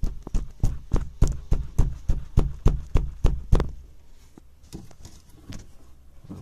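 Rapid, even knocking on a car's door panel, about four knocks a second for three and a half seconds, then a few scattered taps.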